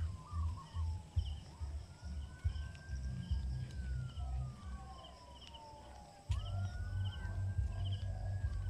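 Footsteps and handling knocks from walking through grass with a handheld camera, a dull thud about twice a second, over a faint tone that slides slowly up and down and small repeated chirps. The level jumps abruptly about six seconds in.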